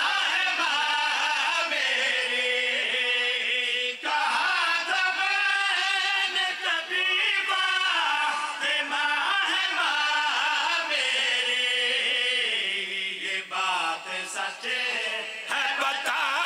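A group of men singing a devotional chant together into microphones, several voices in unison on long, wavering held notes, amplified through a sound system.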